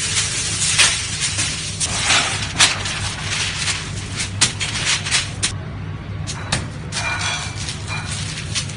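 A large plastic sheet rustling and crackling as it is shaken out and smoothed by hand onto a steel counter, with a few sharp snaps in the first few seconds. The rustling dies down after about five seconds, and a steady low kitchen hum runs underneath.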